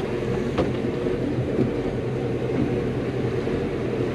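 Boat engine running steadily with an even hum, with a single light click about half a second in.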